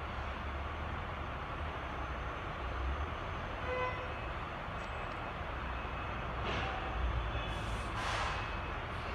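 Steady low rumble of trucks running at a distant freight yard. A short horn toot comes about four seconds in, and two bursts of hiss come near the end.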